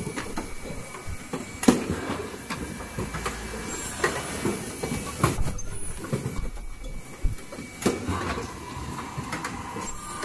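Automatic N95 cup mask machine running: a steady clatter of clicks and knocks from its mechanisms, with a louder burst about every two to three seconds, four times, as the machine cycles.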